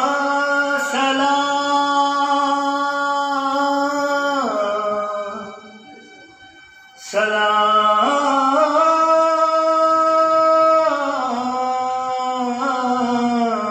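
A man singing a patriotic song solo into a handheld microphone, in long held notes with no instruments. One phrase ends about four seconds in, and after a short breath a second, longer phrase follows.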